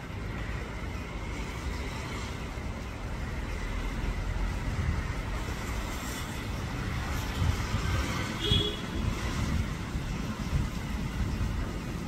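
Steady low outdoor rumble, and a short high bird call about eight and a half seconds in.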